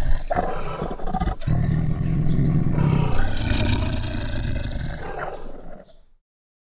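Tiger growling and roaring in deep rumbles; the sound cuts off suddenly about six seconds in.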